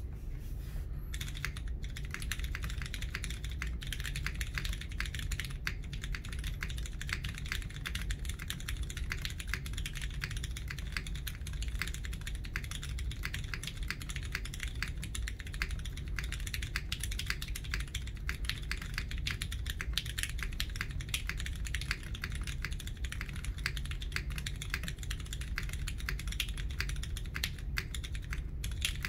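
Continuous typing on a custom tenkeyless mechanical keyboard (Bias v2 case): lubed MX Clear tactile switches with 63.5 g Sprit springs on an aluminium plate, under GMK white-on-black keycaps, with Cherry stabilisers.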